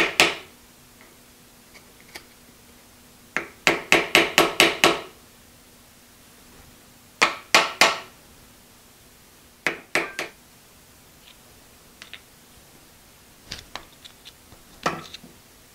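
Hammer striking a cheap wood chisel wedged behind a collar on a milling machine's lead screw, driving it to loosen the collar: quick clusters of sharp metal strikes, about five a second, in groups of three to seven, with a few lighter single taps near the end.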